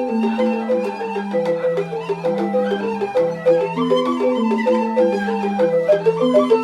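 Rindik, Balinese bamboo xylophones, playing a fast, repeating pattern of short struck notes over a lower moving line.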